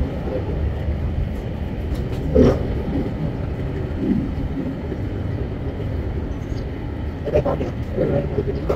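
Steady low rumble of an Airbus A320-family jet airliner landing, with a few short louder sounds about two and a half seconds in and again near the end.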